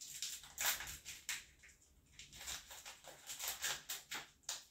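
Small packet of hamster treat mix crinkling and rustling in the hands as it is opened, in two spells of quick crackles with a short lull about two seconds in.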